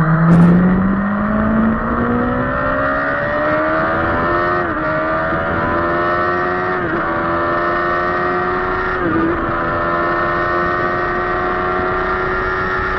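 Kawasaki sport bike's inline-four engine heard from onboard, accelerating hard in a rising pitch. The pitch dips briefly three times, about five, seven and nine seconds in, as the rider changes up a gear, over steady wind rush.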